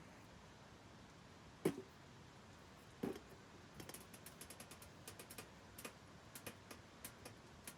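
Two soft knocks, then a run of faint, irregular clicks and ticks.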